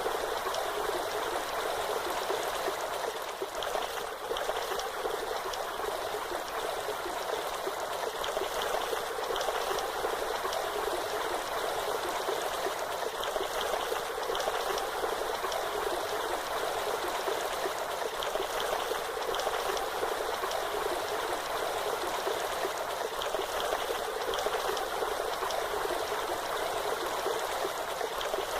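Waterfall of water rushing and splashing in a steady, unbroken stream, with little deep rumble.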